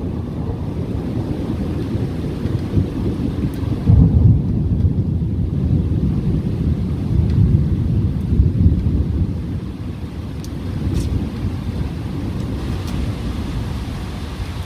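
Torrential rain in a thunderstorm: a dense, continuous rush with a heavy low rumble that swells about four seconds in and again about eight seconds in, then eases slightly toward the end.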